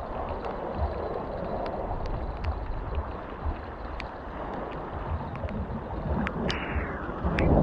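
Choppy sea water washing and gurgling against the jetty rocks, with wind buffeting the microphone. Scattered light clicks run through it, and a brief falling whine comes about six seconds in.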